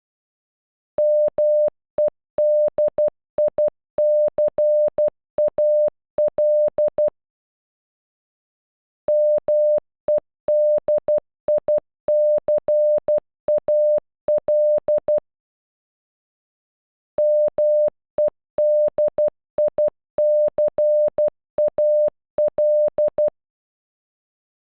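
Morse code for "MEDICAL" (-- . -.. .. -.-. .- .-..) sounded as beeps of a single steady mid-pitched tone. The word is played three times, each pass about six seconds long, with a pause of about two seconds between passes.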